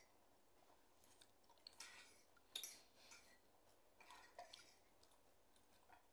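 Faint eating sounds of people eating noodles: soft chewing and a few short wet mouth noises scattered through, the sharpest about two and a half seconds in.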